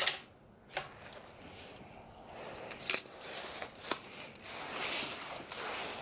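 Paper shooting targets rustling and sliding against each other on a bench as they are picked up and shuffled, with a few sharp snaps scattered through it, four in all.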